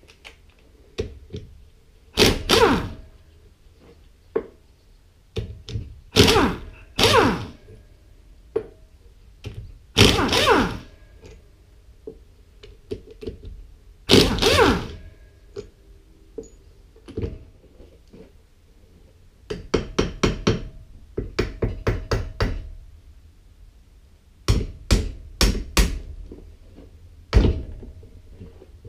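Impact wrench run in about five short bursts of half a second to a second on the bolts of a hydraulic pump, to loosen them for taking the pump apart. In the last third come a quick run of taps and then several sharp hammer blows on the pump.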